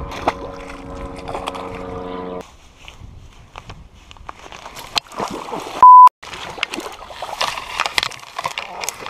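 A steady engine drone with several pitches cuts off abruptly about two seconds in. A small bass drops into the marsh water right at the start. After the drone stops there is close rustling and crackling of reeds and grass brushing the camera, and about six seconds in a short, very loud single-pitch censor bleep.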